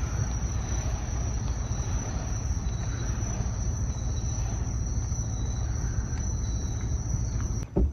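Insects trilling in one steady high note over a low, steady rumble; both cut off abruptly just before the end.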